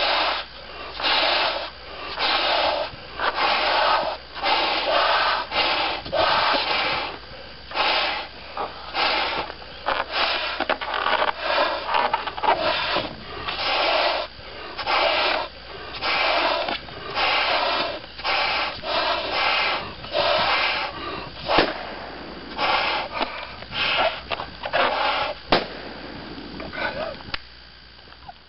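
Two people blowing hard into Qualatex 16-inch latex balloons, a run of forceful exhalations with rasping breaths drawn in between, the two overlapping. About 22 seconds in, a sharp bang as one overinflated balloon bursts, and a second bang about four seconds later as the other bursts.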